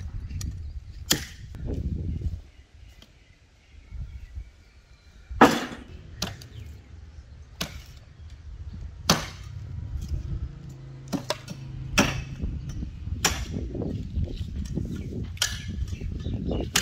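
Sharp chopping knocks of a butcher's blade on goat bone and a wooden chopping block, about ten irregular strikes, over a low wind rumble.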